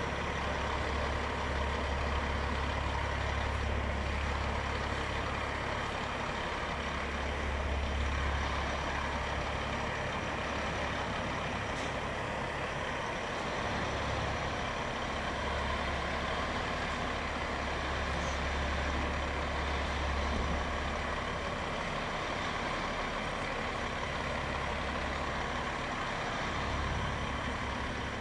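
Heavy conventional semi-truck's diesel engine running at low speed as the truck creeps forward, a deep steady rumble that eases off briefly a few times.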